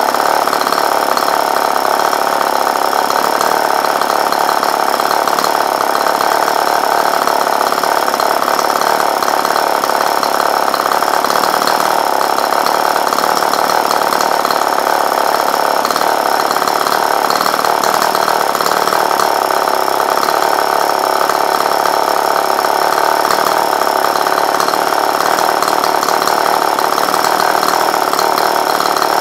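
Tartan 22 cc two-stroke engine on a test stand running steadily at an even speed, turning a propeller.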